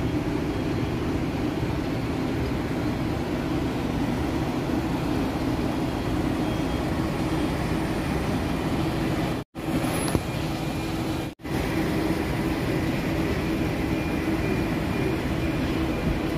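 Steady drone of engines and machinery on a construction site, with no distinct separate events; it cuts out briefly twice near the middle.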